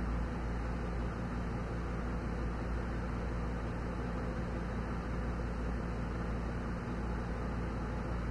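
Window air conditioner running: a steady rush of fan noise over a low, even hum.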